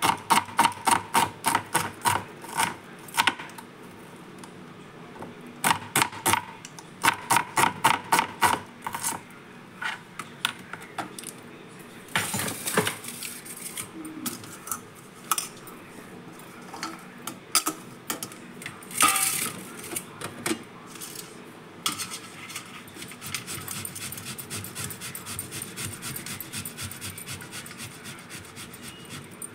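A kitchen knife chopping onion on a cutting board in quick strikes, about four a second, in two runs with a short pause between. This is followed by scattered clatter of bowls and utensils being moved. Near the end comes a fast, even scraping as a potato is rubbed on a stainless-steel box grater over a steel plate.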